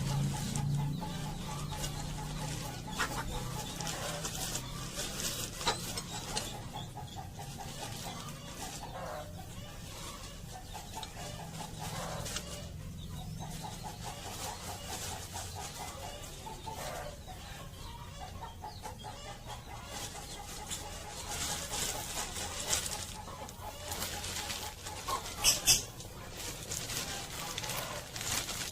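Chickens clucking in a coop, with light rustling throughout and two short, sharp sounds near the end.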